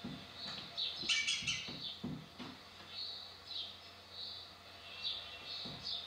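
Small birds chirping in a garden: short high chirps repeating about every half second, with a louder, busier burst of song about a second in.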